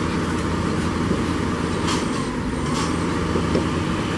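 Airliner's jet engines running at taxi power: a steady low rumble.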